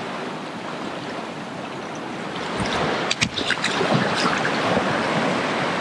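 Fast mountain river rushing over rocks, swelling louder from about three seconds in as the microphone passes close over the white water, with a few sharp knocks around three seconds in.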